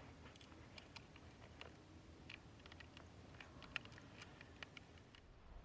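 Faint, irregular small plastic clicks and ticks from a Toyota 4Runner's HVAC control panel being handled as its bulbs are replaced, with one sharper click a little under four seconds in.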